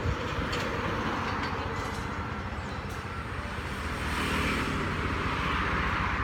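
Steady outdoor background noise: a low rumble under a hiss that swells about four seconds in, with no calls from the monkey.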